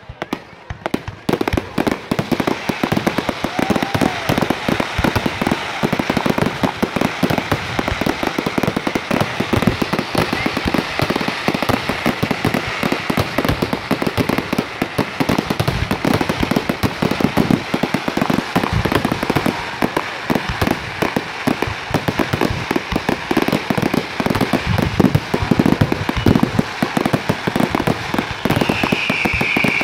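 Fireworks display going off in a dense, rapid volley of bangs and crackles, one burst hard on another without a break.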